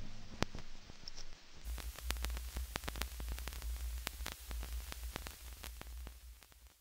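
Vinyl record crackle left after the beat has faded: scattered, irregular pops and clicks over a low rumble that comes in about a second and a half in, the whole thing fading away near the end.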